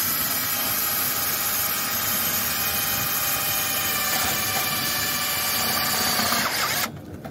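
Cordless drill driving a self-drilling metal screw through a metal pipe strap: a steady motor whine with grinding, which cuts off suddenly near the end as the screw is driven home.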